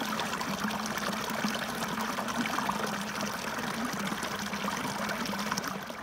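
Shallow stream running over rocks, a steady trickling, babbling rush of water.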